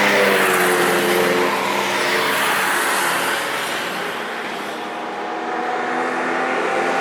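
A car passes at speed on a race track: its engine note drops in pitch and fades over the first few seconds over tyre and wind noise. Near the end the next car can be heard approaching.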